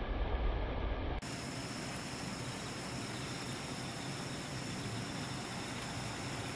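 A low rumble for about the first second, which stops at an abrupt cut. It gives way to an even outdoor hiss with a steady high trill of night insects running through it.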